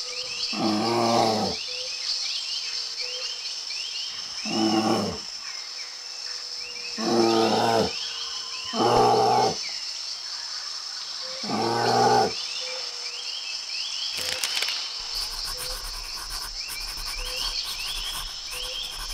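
Bear growling: five roaring growls of about a second each, spread over the first twelve seconds, over a steady background of crickets and chirping birds.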